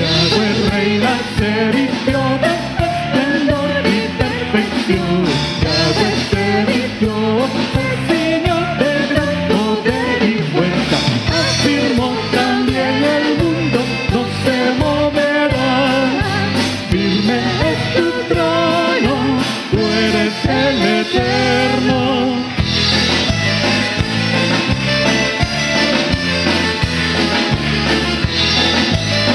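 A live worship band playing, with a man and a woman singing a song in Spanish over keyboards, trumpets and drums, with a steady beat.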